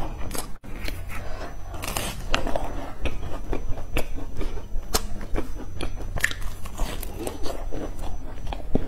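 Close-up biting and chewing of a flaky, sesame-topped pastry, the crisp crust crackling in many short, irregular crunches.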